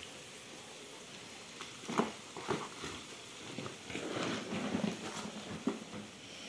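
Cardboard egg trays being handled and set into a plastic basin: light rustling and scraping, with a few soft knocks.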